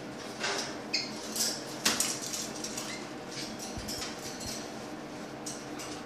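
Caiques tugging and crumpling a paper towel through the bars of their wire cage: a run of crinkling rustles and light metallic clatters, the loudest about two seconds in, with a short high squeak about a second in.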